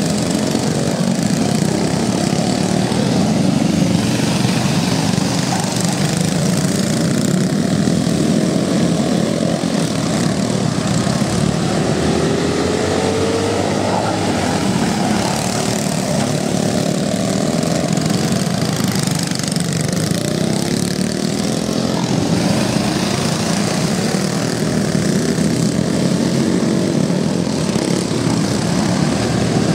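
A pack of Briggs Raptor small-engine go-karts racing on a dirt oval, several engines running together in a steady din. Engine pitch rises and falls as karts brake and accelerate through the turns, with a clear rising glide about halfway through.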